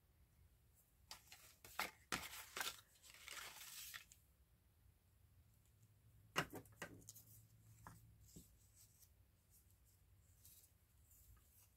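Paper being handled and torn, in short bursts between about one and four seconds in, with one longer steady tear, then a brief rustle about six and a half seconds in.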